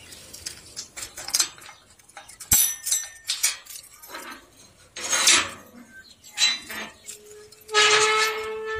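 Key turning in a Dolly lever padlock on a rusty iron gate: metallic clicks and clinks, with a sharp clack about two and a half seconds in as the lock opens, then rattling as the lock is worked off the latch. Near the end the iron gate gives a short squeal as it swings open.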